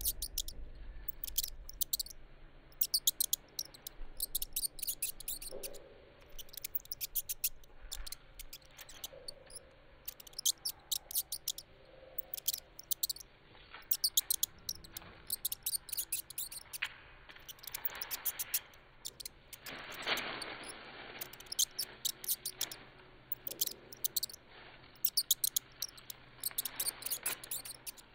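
Rat or mouse squeaks: bursts of rapid, very high-pitched squeaking chirps repeating every second or two, with a few soft rustles in between.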